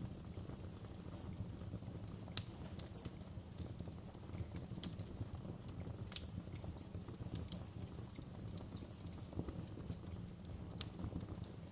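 Fire crackling in a fireplace: a steady low rumble under irregular small crackles, with a few sharper pops about two and a half, six and eleven seconds in.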